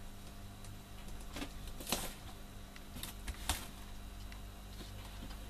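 Hands handling cardstock and pressing a strip of tape along its edge: soft rustles and a few small clicks, the clearest about two and three and a half seconds in, over a low steady hum.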